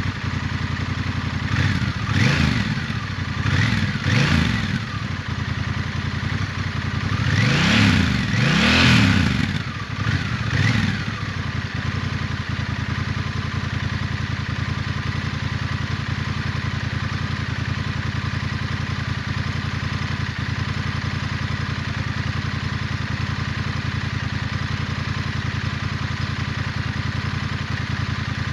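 Large twin-cylinder cruiser motorcycle on its stock exhaust, blipped several times in the first ten seconds or so, with the engine note rising and falling each time, the biggest rev about eight seconds in, then settling to a steady idle.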